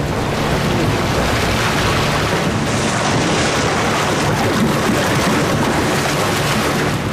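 Loud, continuous churning and splashing of river water as hippos fight.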